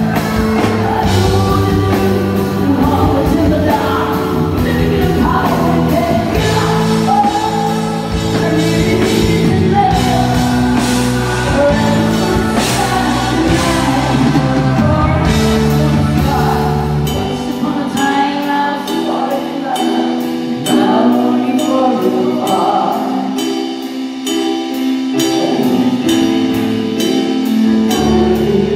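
Live rock band playing a power ballad: a woman singing lead over keyboards, electric guitars, bass and drums. About seventeen seconds in the bass and drums drop away, leaving the voice over a steady, quickly repeated figure.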